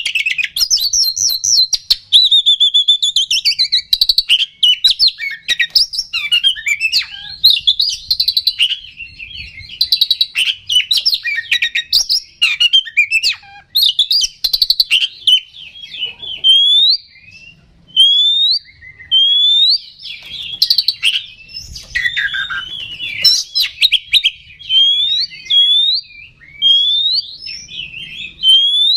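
Oriental magpie-robin singing a loud, fast, varied song of whistles and chattering trills without a break. From about halfway it repeats a rising whistled note roughly once a second between other phrases. This is the agitated, full song (gacor) that kacer keepers play to rouse other magpie-robins.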